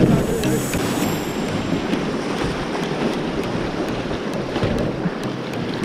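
Whitewater of a river rapid rushing and churning around a canoe's hull, a steady wash of fast water.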